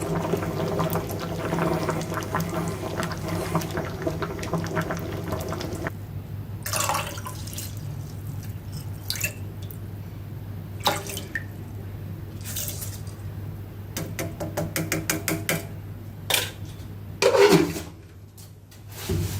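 Running water for about six seconds, then a series of separate clinks, knocks and short splashes.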